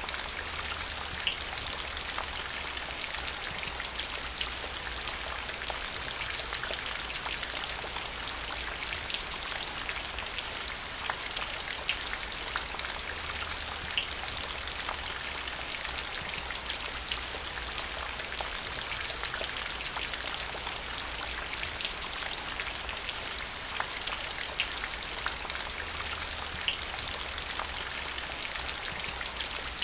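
Steady rain falling on wet paving stones and puddles: an even hiss of rainfall with many separate drop ticks scattered through it.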